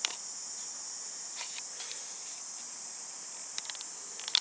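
A steady, high-pitched drone of insects in a summer park, with a few short faint ticks, one right at the start and several near the end.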